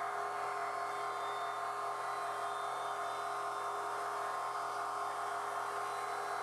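Thickness planer running steadily as a glued-up gum-wood panel feeds through it: an even mechanical hum with a steady whine over a noisy haze.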